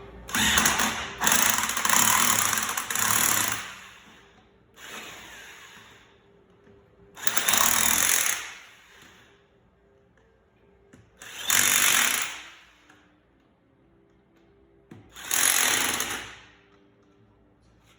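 Power tool, most likely a cordless impact wrench, running the lug bolts onto a car wheel's studs in five or six short bursts of one to three seconds each, with pauses between them.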